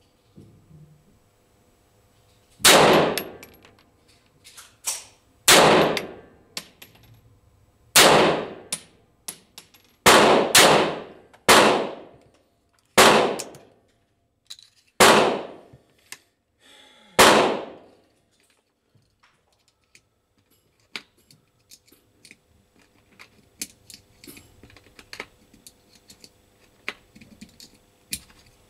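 About nine pistol shots a second or two apart, each a sharp crack with a short ringing tail. The firing stops about two-thirds of the way through, leaving faint scattered clicks.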